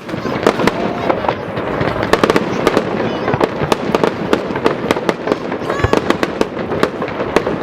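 Fireworks display: aerial shells bursting in rapid, overlapping bangs and crackles, many a second without a break.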